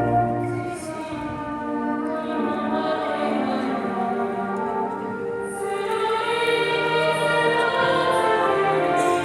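Choir singing a slow song with a school brass band accompanying, in long held chords that swell about halfway through.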